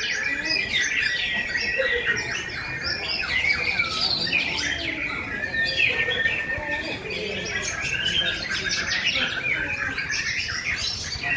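Many caged songbirds, white-rumped shamas (murai batu) among them, singing at once: a dense tangle of overlapping whistles, rapid trills and sliding notes, with a long held whistle running under them.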